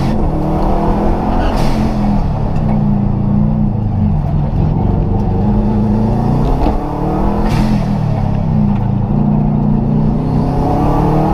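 A rally car's engine heard from inside the stripped, caged cabin, revving hard as the car is driven at speed. The engine note climbs and falls through gear changes, with a brief drop in loudness and pitch at a shift about two-thirds of the way through. A few short sharp cracks come in between.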